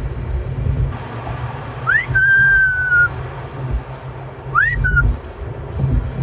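Amazon parrot whistling twice: a rising whistle that settles into a long held note, then a shorter rising whistle, over the low rumble of a moving car.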